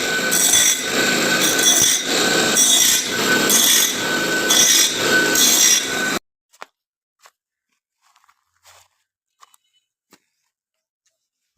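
Electric grinder grinding the teeth of a woodcutter blade, the harsh grinding swelling and fading in a steady rhythm a little slower than once a second. It cuts off suddenly about six seconds in, leaving only a few faint clicks and taps.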